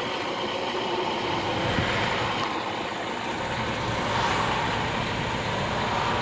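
Steady engine and road noise of highway traffic, heard from inside a truck cab.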